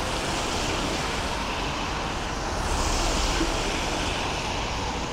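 Cars passing on a wet road, tyres hissing on the wet surface. The hiss swells as one car passes close about three seconds in, then eases.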